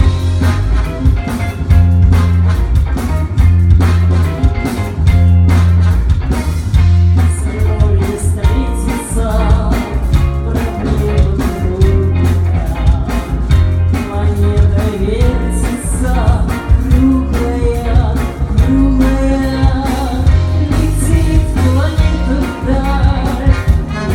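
A band playing a song, with a singer over heavy bass, drums and guitar.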